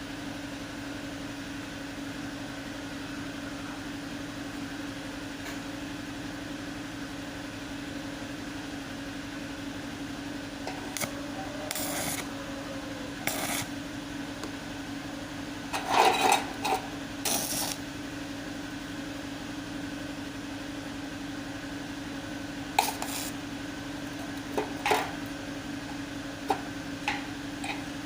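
Scattered metal clinks and knocks, as metal pieces or tools are handled and tapped, over a steady electrical hum. There are a few light clicks about halfway through, a louder cluster of knocks just past the middle, and more single clinks near the end.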